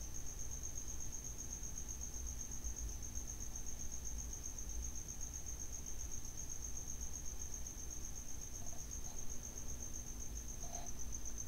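An insect trilling steadily on one high, finely pulsing note, over a faint low hum.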